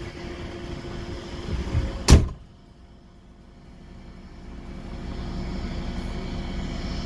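Low rumble of a stationary Volvo lorry's diesel engine heard inside the cab. About two seconds in there is one sharp knock, after which the sound drops away suddenly and then slowly builds back up.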